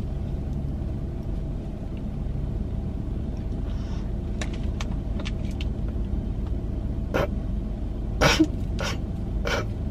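Steady low rumble of a car's engine idling, heard from inside the cabin. Over it come a few faint ticks midway and several short clicks and mouth smacks of eating in the last three seconds.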